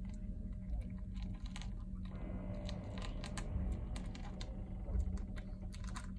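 Kitten crunching dry cat food from a bowl: irregular crisp crunches, over a steady low hum.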